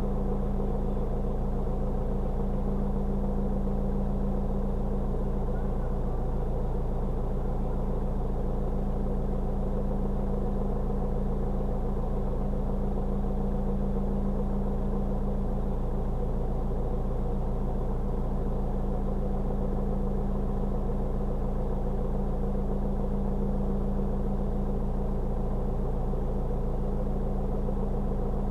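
A steady, unchanging low mechanical hum made of several even tones.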